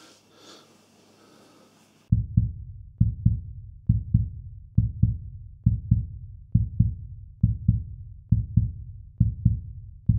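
Heartbeat sound effect: a low double thump, lub-dub, repeating a little under once a second, starting about two seconds in.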